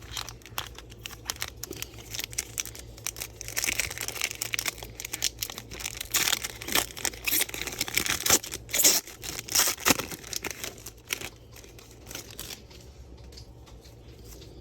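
Crinkling and tearing of a trading-card pack wrapper as the pack is opened, with irregular rustles and clicks of cards being handled. The busiest stretch is in the middle, and it eases off near the end.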